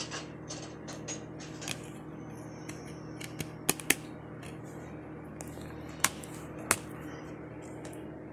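A disc pressed onto the centre hub of a plastic DVD case and the case snapped shut: a few light clicks, then two sharp clicks close together about four seconds in and two more between six and seven seconds.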